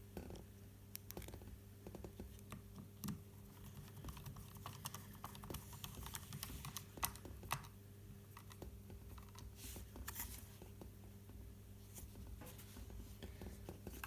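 Faint, irregular small clicks and taps of a small screwdriver and fingers handling parts as screws are driven into a DJI Mavic Pro drone's plastic body shell, over a steady low hum.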